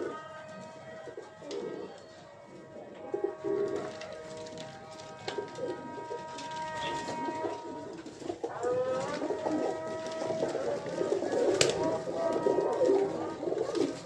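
Many teddy pigeons cooing in a loft, the calls growing busier and louder in the second half, over background music with long held notes.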